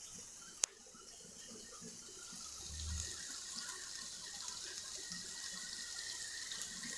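Chopped onions sizzling faintly in oil in a pot, a steady soft hiss, with a single sharp click just after the start.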